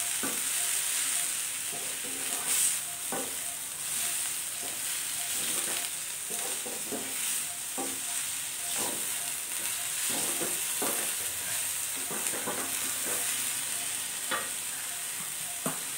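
Coriander leaves, mint and grated coconut sizzling in hot oil in a steel kadai, steady throughout, while a spatula stirs and scrapes them against the pan in irregular strokes about once a second.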